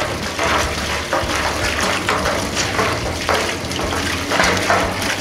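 Muddy, sandy water gushing out of the open plug hole at the base of a galvanized well pressure tank and splattering onto wet concrete, over a steady low hum. The water is flushing sediment stirred up inside the tank while the pump keeps it under flow.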